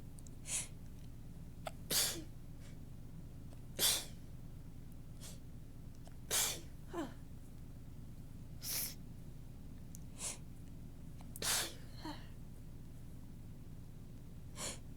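A run of about five soft, tickly human sneezes with short catching breaths between them. The nose is stuffed up.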